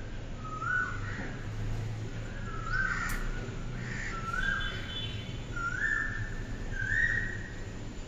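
A bird calling over and over, about five short calls a second or so apart, several sliding up in pitch as they start, with fainter answering calls between them.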